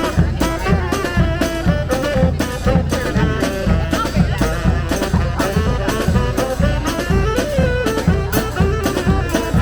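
Street brass band playing a tune, horns and saxophone carrying the melody over a steady drum beat.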